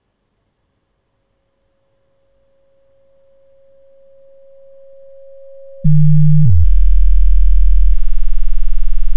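Steady 545 Hz sine tone from a sound simulation's virtual speaker, faint at first and slowly growing louder as air is let back into the simulated vacuum box. About six seconds in, a very loud low buzz with many overtones suddenly cuts in and drops lower in pitch half a second later.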